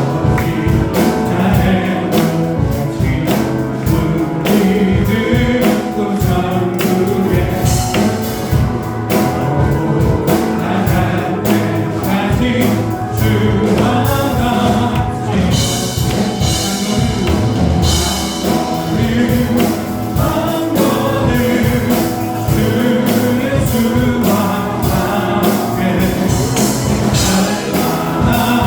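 Praise-and-worship song: a band with drums keeping a steady beat while a group of voices sings.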